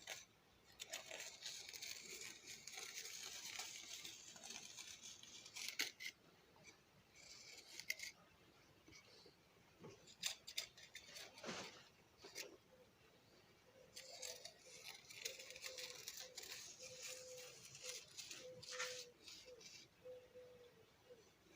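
Metal palette knife scraping and cutting grooves into fresh cement mortar: faint scratchy strokes a few seconds long, with light clicks of the blade.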